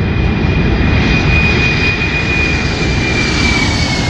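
Stratolaunch's six Pratt & Whitney PW4056 turbofan jet engines at takeoff power as the aircraft rolls and lifts off: a loud, steady rumble under a high whine that slides slightly lower near the end.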